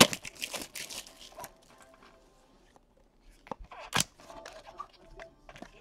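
Foil trading-card pack wrapper being torn open and crinkled, starting with a sharp crack, then two sharp clicks about three and a half and four seconds in as the cards are handled.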